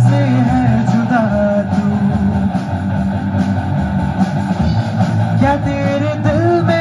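Live rock band playing: electric guitar, bass guitar, drum kit and keyboard, with a woman's voice singing a melody line near the start and again about five and a half seconds in.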